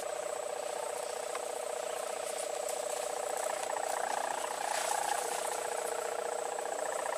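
The sendaren, the 3-metre wind-hummer bow strung on a large Banyuwangi-style kite, drones steadily in the wind with a buzzing, snoring rasp. The drone swells and wavers in pitch about four to five seconds in.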